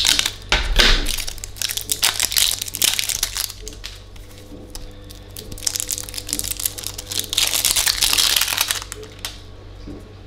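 Clear plastic shrink-wrap being torn and peeled off a small plastic jar, crinkling and crackling in quick bursts through the first few seconds and again for a couple of seconds near the end.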